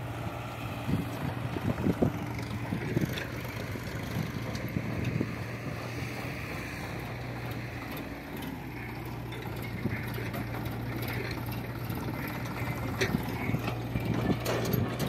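Diesel engines of a Sonalika tractor and a hydraulic excavator running steadily at a low hum. A few sharp knocks in the first few seconds and again near the end come from earth being dumped into the tractor's steel trailer.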